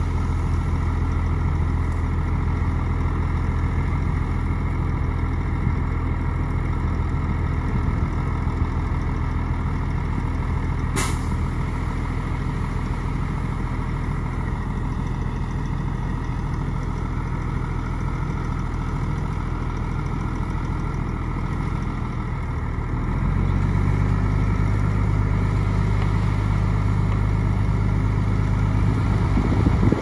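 Heavy diesel engine of earthmoving machinery running steadily, with one short sharp click about a third of the way in. About three quarters of the way through, the engine note shifts and grows a little louder as it takes more load or revs.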